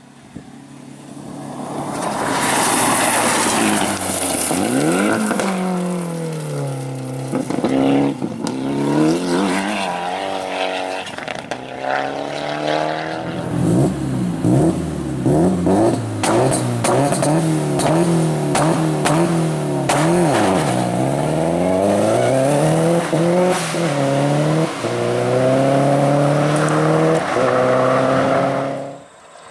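Rally car engine revving hard, its pitch climbing and dropping again and again through gear changes and lifts off the throttle, with sharp cracks scattered through the middle. It builds up over the first two seconds and cuts off suddenly near the end.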